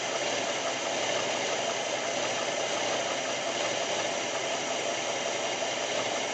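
1989 Jeep Wrangler YJ engine running steadily in gear with a rapid, rattling knock from the top of the engine. The owner reports that the knock comes only in gear, together with excessive blow-by.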